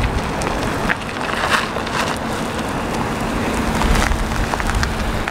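A compact Ford SUV driving slowly up at low speed, under steady wind noise buffeting the microphone.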